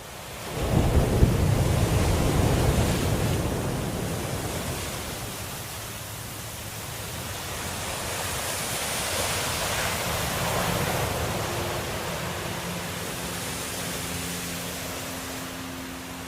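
A deep rumble swells up about half a second in, then settles into a steady rushing hiss like heavy rain. Faint held musical notes come in over it near the end.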